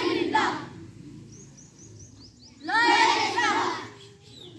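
A large group of karate students shouting together in unison during a drill: one shout right at the start and another about three seconds in. Faint bird chirps can be heard in the quieter gap between the shouts.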